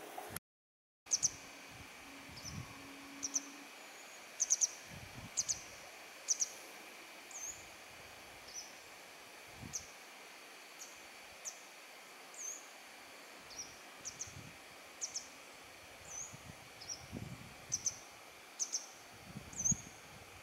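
A songbird calling over and over with short, high chirps, about one or two a second, over a steady faint high insect drone. A few soft low thumps come in between, and the first second is silent.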